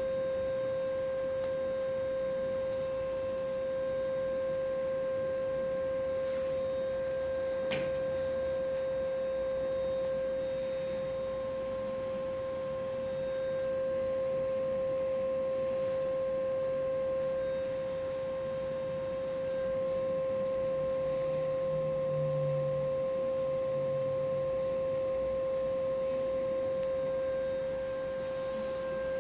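A steady, unbroken pure tone with faint overtones above it. A single sharp click about eight seconds in.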